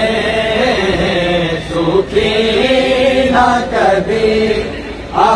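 Male voices chanting a noha, an Urdu mourning lament, in long drawn-out sung phrases with brief breaks between them.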